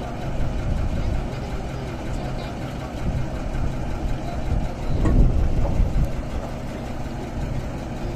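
Diesel engine of a borewell drilling rig truck running steadily, a low even rumble that swells briefly about five seconds in.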